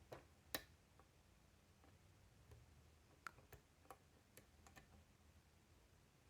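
Irregular small clicks of a lock pick and tension tool working the pins of a five-pin, Yale-keyway pin-tumbler challenge lock, with one sharper click about half a second in. The lock is held in a deep false set.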